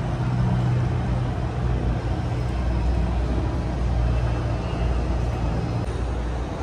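Steady low mechanical drone of aircraft and ground vehicles on the airport apron, heard through the terminal glass; it drops away about six seconds in.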